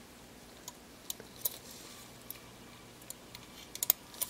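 Light plastic clicks and small snaps as a small screwdriver pries the retaining clips of a Panasonic Lumix ZS19 camera's top frame piece loose. The clicks come singly at first, then a quick cluster of sharper snaps near the end.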